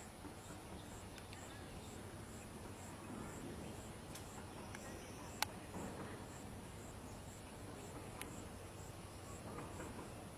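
A cricket chirping faintly and regularly, about twice a second, over low outdoor hiss. A single sharp click comes about five seconds in.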